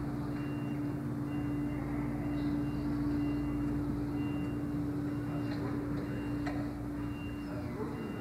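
Steady low electrical or mechanical hum, with a faint high-pitched tone sounding on and off in short spells.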